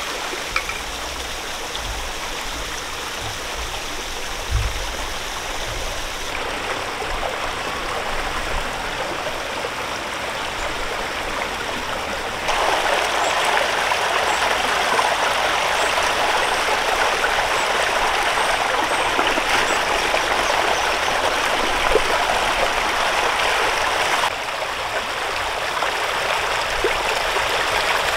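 Steady rush of running water, stepping abruptly louder about halfway through and back down a few seconds before the end.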